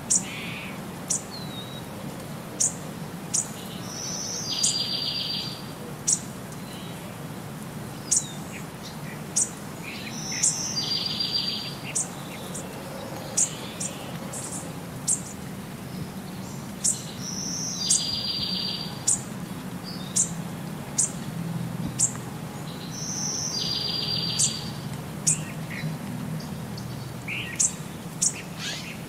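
Background track of birdsong: short, sharp, high chirps about once or twice a second, and a buzzy trill that comes back about every six to seven seconds, over a steady low hum. The same pattern repeats like a loop.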